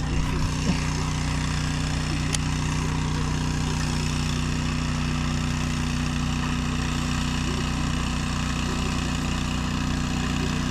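A boat's motor running steadily with an even hum, with a few light clicks in the first seconds.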